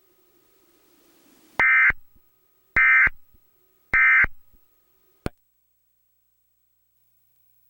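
Emergency Alert System end-of-message data tones: three short, buzzy digital bursts about a second apart, signalling that the alert is over. A single click follows.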